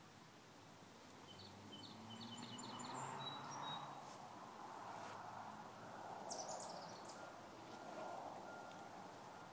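Birds chirping: a quick run of short notes about a second and a half in, and a brighter, higher run of falling notes around six seconds in, over a soft outdoor background hiss. Faint, evenly spaced distant reversing beeps come in near the end.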